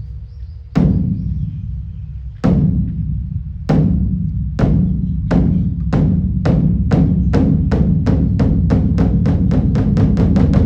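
Large Korean Buddhist temple drum (beopgo) struck in the evening ceremony. Single deep, booming strokes come slowly at first and then speed up steadily into a fast roll near the end.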